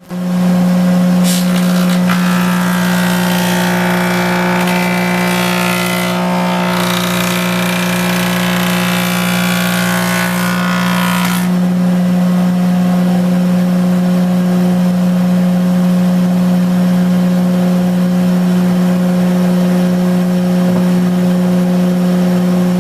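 1915 Porter jointer running with a loud, steady hum. From about a second in until about eleven seconds a board is fed across the spinning knives, a dense rushing planing noise over the hum, after which the machine runs on unloaded.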